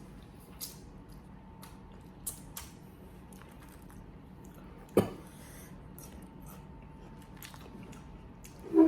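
Boiled crawfish being cracked, peeled and eaten by hand: scattered small snaps, wet clicks and chewing, with one sharp crack about five seconds in and a short louder sound near the end.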